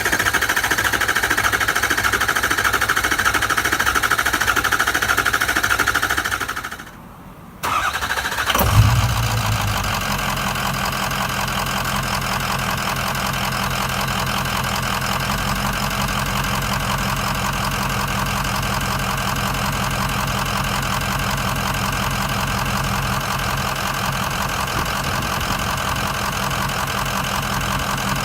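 Ford 6.0 Powerstroke V8 diesel: a steady whine dies away about six seconds in, then the engine is cranked and fires with a burst about nine seconds in. It settles into a rough, loping idle, the miss of a failed #7 injector.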